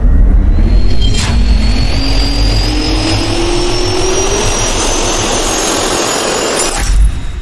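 Jet engine sound effect spooling up: a loud rush of air over a low rumble, with a turbine whine that slowly rises in pitch. There is a sharp hit about a second in and another near the end, after which the sound begins to fade.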